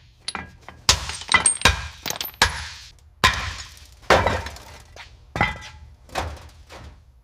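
A series of sharp crashing clanks, about eight irregular strikes roughly a second apart, each with a short ringing tail, like glass or metal breaking or being struck.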